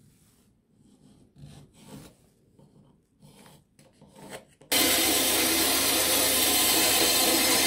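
Short, quiet scratching strokes of a marker on plywood as it traces around a tin; nearly five seconds in, a bandsaw comes in suddenly, loud and steady, its blade cutting a curve through a block of wood.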